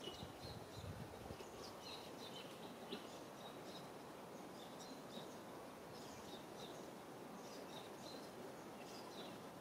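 Faint outdoor ambience: a steady low background hiss with many short, high bird chirps scattered throughout.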